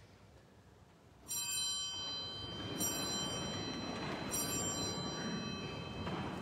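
A bell struck three times, about a second and a half apart, starting a little over a second in; each strike rings on with high, bright overtones.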